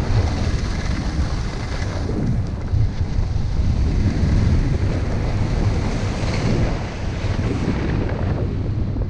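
Wind buffeting a GoPro's microphone during a fast ski descent, a steady low rumble, under the hiss of skis sliding over groomed snow.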